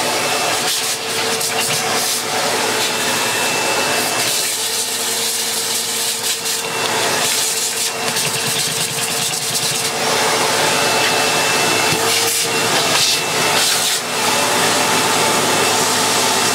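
A separate vacuum cleaner running steadily as its nozzle is passed over a Dyson cyclone assembly and bin to suck out dirt. The whine and hiss waver as the nozzle moves, and near the end the motor switches off and spins down with a falling whine.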